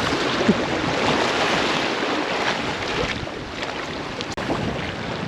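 Waves surging against and washing over a seawall, a steady rushing of water, with wind buffeting the microphone.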